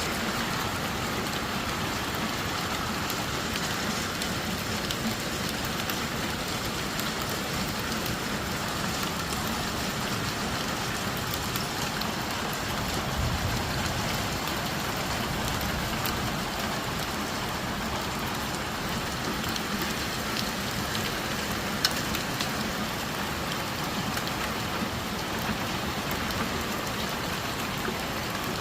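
Hail falling steadily: a dense, even patter with sharper single clicks of stones striking scattered throughout, and one louder hit about three quarters of the way through.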